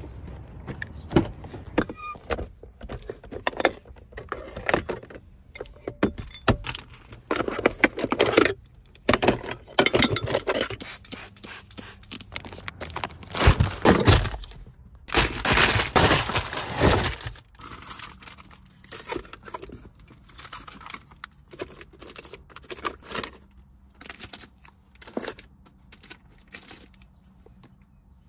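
Irregular handling noises in a car: clicks, knocks and rustling as things are moved about, with louder stretches of rubbing over a leather seat around the middle.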